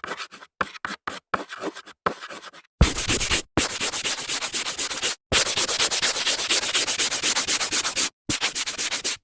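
Blackboard: a few short scratchy strokes at first, then from about three seconds in a long run of fast back-and-forth rubbing strokes across the board, several a second, with brief pauses.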